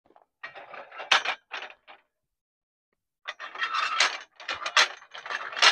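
Mild-steel dueling-tree paddles clanking and rattling on their pivot post as they are handled, in two spells of quick metallic clatter, the second starting about three seconds in.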